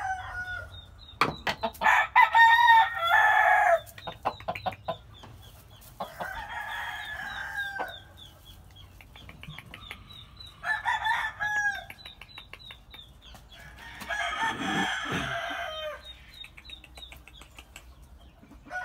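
Gamefowl roosters crowing: one loud crow about a second in, followed by three quieter crows spaced about four seconds apart.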